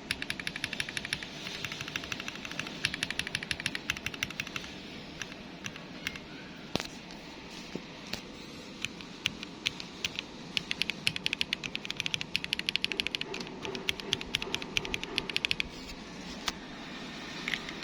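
Fast typing on a mechanical keyboard: dense runs of key clacks. It thins out in the middle, where one louder clack stands out, then picks up again.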